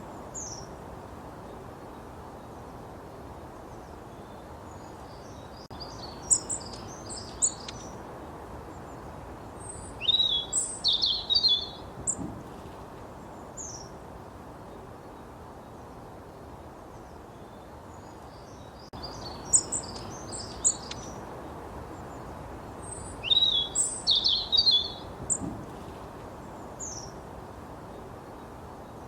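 Sparrow chirping in short bursts of quick, high chirps, with pauses of a few seconds between the bursts. A steady hiss runs underneath, and the same run of chirps comes round again about halfway through.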